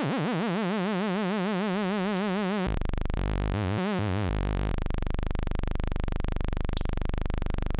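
Nunomo Qun mk2 synthesizer sounding a continuous drone, its envelope set to always on. For the first few seconds the pitch wobbles about five times a second; then the tone drops to a lower, buzzier sound that takes on a fast, even pulsing as a knob is turned.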